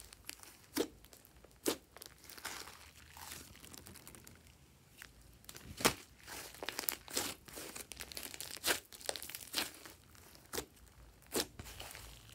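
Thick pink slime mixed with clay, squished and stretched by hand, giving irregular sticky crackles and sharp pops as air pockets burst. The loudest pop comes about six seconds in, as a large air bubble in the slime is pressed.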